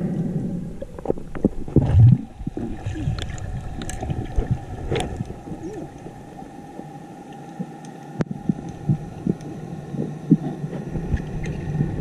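Underwater sound through a camera housing: a steady hum carries through the water, with scattered clicks and knocks, a heavy low thump about two seconds in and a sharp click about eight seconds in.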